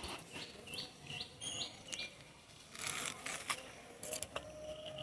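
A small bird calling: a quick run of short, rising chirps in the first two seconds, with a few crisp crackles about three seconds in.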